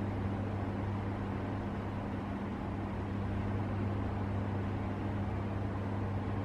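Steady background hum with an even hiss over it, unchanging throughout, with no distinct events.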